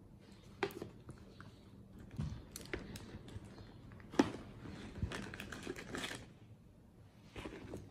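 Scattered light clicks, taps and rustles of items being packed into a leather handbag: a plastic lunch box and small things set in and shifted about. The sharpest knock comes about four seconds in, with a quick run of taps a second or two later.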